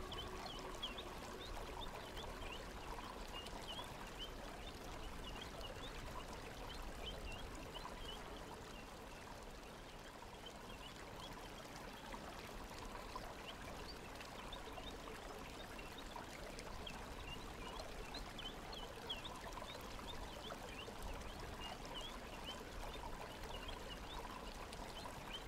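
Quiet flowing water, a stream trickling and bubbling with many small quick plinks. A faint ringing tone fades away over the first few seconds.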